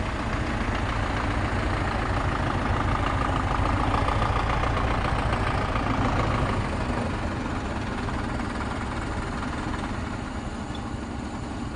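Heavy vehicle engine idling steadily with a fine, even pulse. It runs a little louder in the middle and eases off slightly after about seven seconds.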